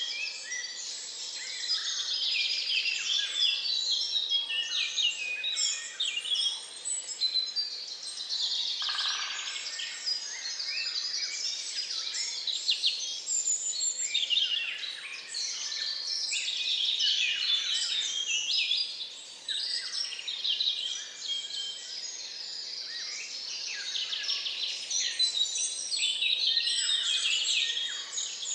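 Dawn chorus: many birds singing and calling at once in a dense, overlapping mix of high chirps, trills and whistles. One lower call stands out about nine seconds in.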